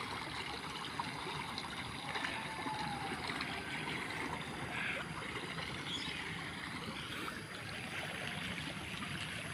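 Small ditch stream flowing fast with muddy rainwater, a steady rush of running water. The usually dry channel is swollen with overflow from a larger river after heavy overnight rain.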